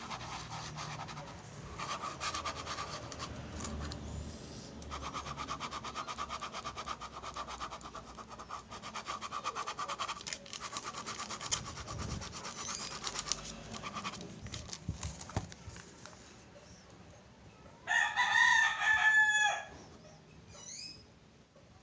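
Ballpoint pen scribbling fast on lined notebook paper: a rapid scratchy rasping that stops and starts in stretches. Near the end a loud, drawn-out pitched animal call lasts about a second and a half.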